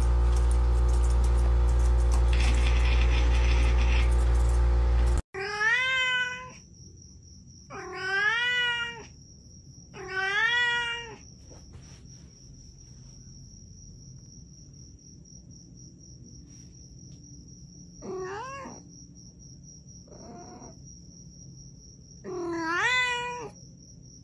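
A white cat meowing in its sleep: six drawn-out calls, each about a second long and rising then falling in pitch, spaced a few seconds apart. Before them, a loud steady drone lasts about five seconds and cuts off abruptly.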